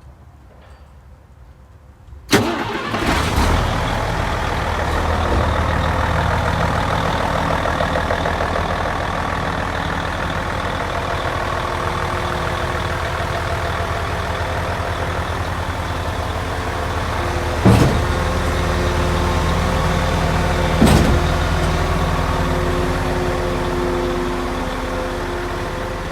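Mercedes Actros truck's diesel engine starting about two seconds in, then idling steadily. Two sharp knocks come later, about three seconds apart.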